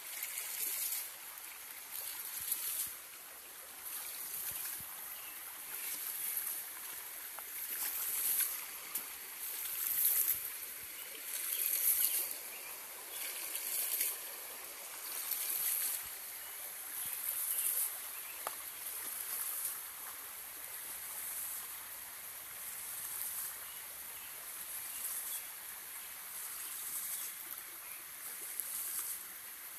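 Homemade 2-inch PVC hydraulic ram pump cycling: water gushes out of its waste valve in rhythmic surges about every two seconds, over the steady rush of a shallow stream. The surges grow fainter in the second half.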